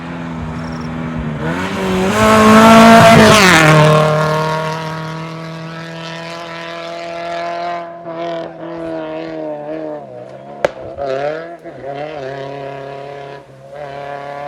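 2WD rally car engine at high revs, loudest about two to four seconds in, then the pitch drops and it carries on at a steady note. In the later seconds the revs rise and fall unevenly, with a single sharp click.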